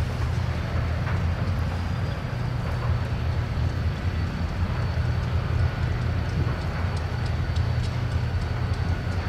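Diesel locomotive engine idling with a steady low rumble.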